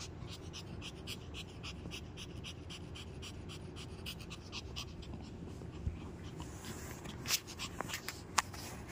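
Pomeranian puppy panting quickly and evenly, about four breaths a second, with a couple of sharp clicks near the end.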